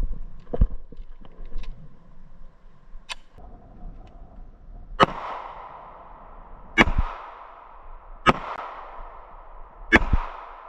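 Four gunshots from a firearm, about a second and a half to two seconds apart, each sharp crack trailing off with an echo. A few lighter clicks and a smaller crack come in the first few seconds.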